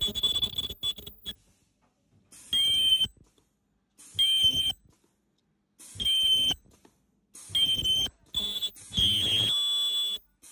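Ultrasonic welder squealing in about six short, high-pitched bursts, each under a second with gaps of a second or so, as it welds the top ring collar onto a 7-inch liquid filter bag. Several bursts open with a quick rising whine before settling on a steady tone.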